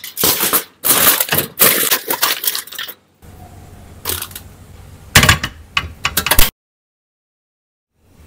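Aluminium foil crinkling and crumpling in several loud, irregular bursts as it is pressed down over a pan and crimped around its rim. The sound cuts off abruptly about six and a half seconds in.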